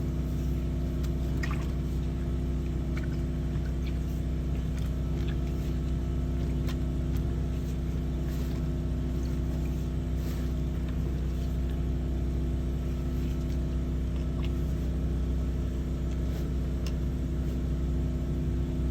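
Sewer water jetter's engine running steadily at constant speed with an even, pitched hum while clearing a grease-clogged sewer line. A few faint clicks sound over it.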